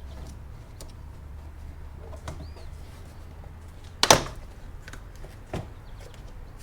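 Hand-tool work on car shifter parts: faint clicks and a brief squeak, then a sharp loud clunk about four seconds in and a smaller knock about a second and a half later.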